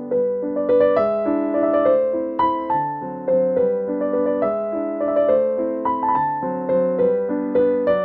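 Background music: a gentle piano melody with chords, one note after another.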